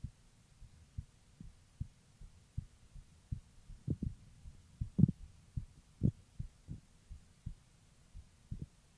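A woman's heartbeat heard through a stethoscope: a steady rhythm of short low thumps, a few beats louder near the middle.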